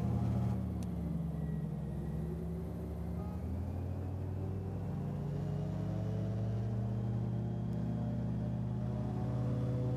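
Airboat engine running steadily, its pitch sagging a little about three seconds in and rising again later.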